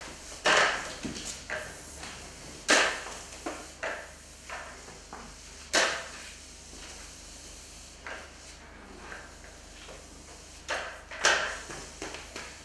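Roller sponge mop pushed in strokes across wet ceramic floor tiles. Each stroke gives a short swish or scrape, a few loud ones among softer ones, irregularly spaced.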